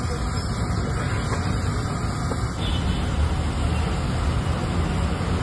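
Steady rumble with a hiss over it from a large wok of sliced potato chips deep-frying in oil over a gas burner, mixed with street traffic noise.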